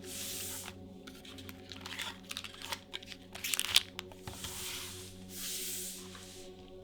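Foil booster-pack wrapper being crinkled and torn open by hand, in a run of crackling clicks with one sharp rip near the middle, and smooth swishes of the packs or cards sliding against each other. Soft background music plays underneath.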